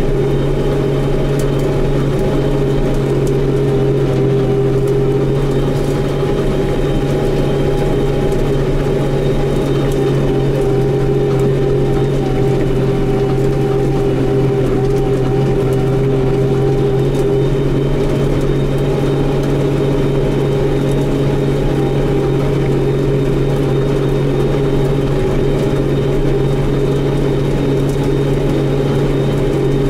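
Tractor engine running at a steady, unchanging speed, heard from inside the cab while the tractor works in the field pulling a fertilizer spreader: a constant low drone with no change in pitch.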